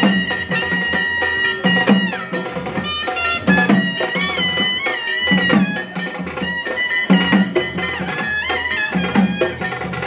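Sanai (shehnai) playing a folk melody of long held notes with bending ornaments, over double-headed barrel drums beaten with hand and stick in a steady rhythm. A deep drum stroke lands about every two seconds.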